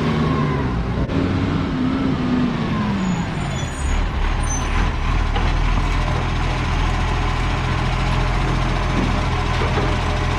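Garbage truck engine running: its pitch climbs and falls over the first three seconds, then settles into a steady low hum, with a few faint high squeaks partway through.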